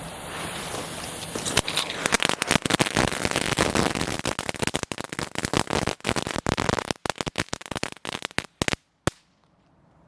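Weco Creepy Crackles youth firework crackling: a steady hiss, then from about one and a half seconds in a dense run of sharp crackles that thins out and stops with a last single pop near the end.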